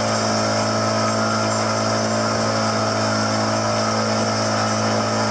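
Motorboat engine running steadily at speed, a constant low hum, with the rush of water and spray against the hull.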